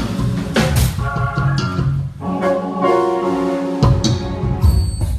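Live gospel band playing: drum kit and bass guitar under organ-style keyboard chords. About two seconds in, the drums and bass drop out and the keyboard holds chords alone. Just before four seconds the full band comes back in on a heavy hit.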